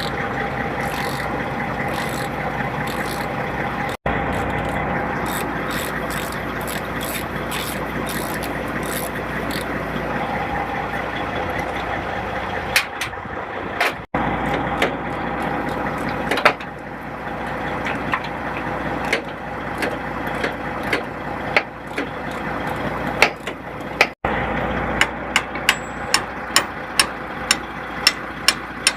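Truck engine idling steadily. About 25 seconds in, a rapid series of sharp hammer blows begins, about two or three a second.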